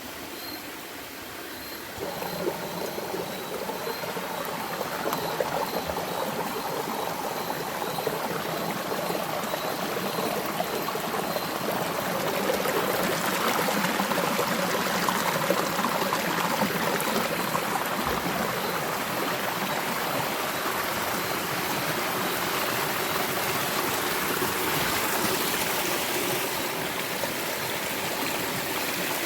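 Creek water running steadily, a continuous rushing and trickling that gets louder about two seconds in.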